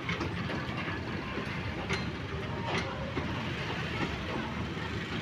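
Railway tank wagons rolling slowly past during shunting: a steady rumble with a few sharp clicks from the wheels.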